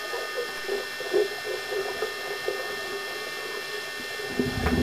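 Muffled underwater sound recorded in a swimming pool during a scuba dive: irregular soft knocks and blips over a steady high whine of several tones. A louder low rumble comes in near the end.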